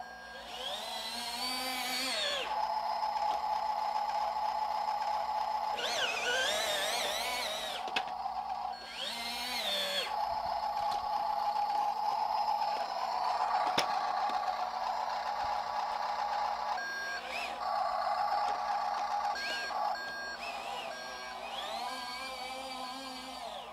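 The electric drive of a 1/14 WLtoys 14600 RC dump truck whining as it drives, rising in pitch as it speeds up and falling as it slows, in several separate runs over a steady hum.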